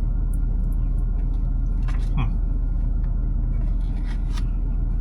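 Steady low rumble of an idling vehicle engine, with a few light clicks and taps.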